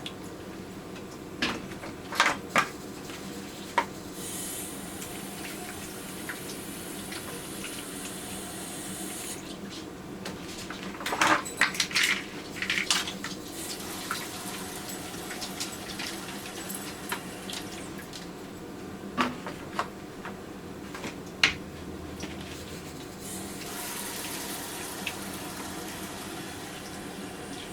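Water running from a kitchen faucet into a sink, with two stretches of brighter hissing as the stream fills a vessel. Glass canning jars clink sharply against glass and metal, a few times early on, in a cluster about a third of the way in, and twice more later.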